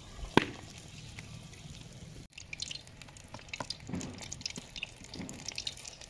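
Hot oil sizzling and crackling in a steel kadhai as batter-coated stuffed tomato pakoras deep-fry, the crackle growing dense from about two seconds in. A single sharp click sounds about half a second in.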